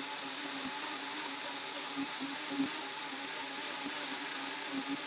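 Two high-powered countertop blenders, a VAVA and a Ninja, running together at full speed on a seven-minute soup blend, making a steady whir. A couple of light knocks come about two seconds in.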